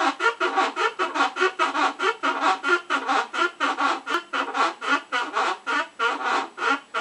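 Maytag MVWC400XW2 top-load washing machine tub turning slowly with a repeated creaking squeak, about four a second. It is an abnormal noise the machine makes as the tub turns.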